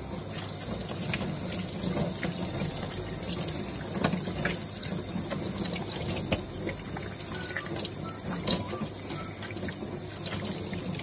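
Tap water running steadily into a stainless steel sink and splashing over a gutted sculpin as its belly cavity is rinsed out by hand. A few light clicks and knocks sound at irregular moments.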